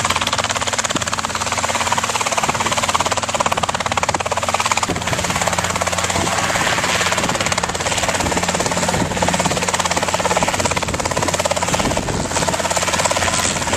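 Robinson R22 light helicopter running close by as it manoeuvres at low level, its four-cylinder Lycoming piston engine and two-blade rotor making a loud, steady drone.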